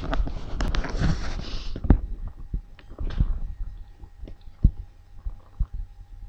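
Rumbling handling noise from the webcam being turned around, for about two seconds, then scattered low thumps and knocks with a faint steady tone underneath.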